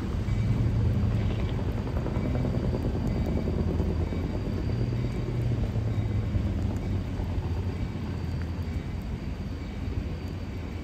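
EMD GP30 diesel locomotive running with a steady low engine drone as it moves away hauling a hopper car, slowly growing fainter.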